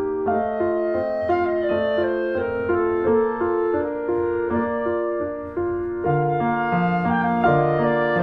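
Instrumental background music, piano with a woodwind line, playing a gentle melody of steady notes; lower notes join in about six seconds in.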